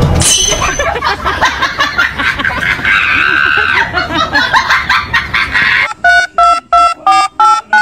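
A busy mix of voices and other sounds, then from about six seconds in a quick run of touch-tone phone keypad beeps, about three a second, each a slightly different tone.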